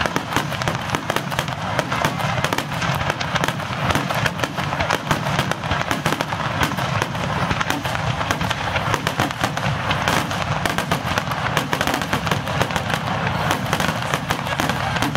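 Aerial firework shells bursting in a dense, continuous barrage, many reports a second with no pause.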